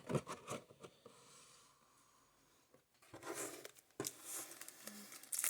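Faint rustling and light taps of hands handling card-box packaging, in a few short spells with a pause of near silence in the middle.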